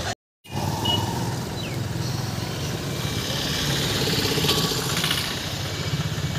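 Bus engine running steadily with road noise, heard from inside the moving bus, after a brief gap right at the start.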